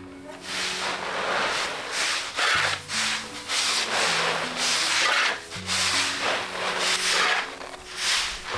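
Repeated rasping, swishing strokes, roughly one a second, over soft background music.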